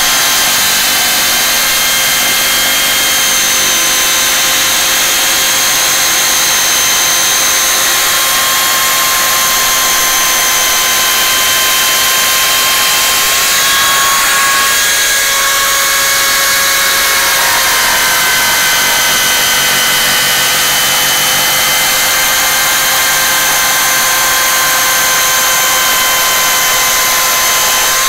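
Parkside PSTK 800 C3 800 W barrel-grip jigsaw running continuously while cutting a curved line. Its motor whine holds steady and shifts slightly in pitch about halfway through.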